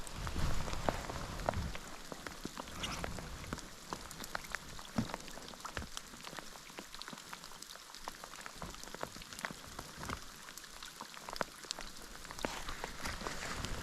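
Rain falling, with many individual drops ticking sharply close to the microphone at an irregular rate. A low rumble sits under it for the first couple of seconds.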